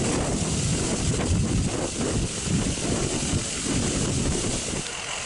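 Wind gusting against the microphone, an uneven low buffeting that drops away near the end.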